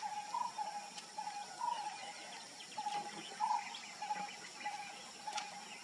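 A bird calling a short note over and over, about two a second, over a steady high buzz of insects; one sharp click near the end.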